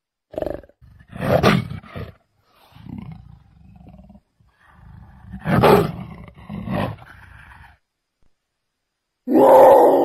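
Leopard roaring and growling: a run of hoarse, rasping calls about a second apart with quieter rough breaths between them, then a short pause and a longer, louder call near the end.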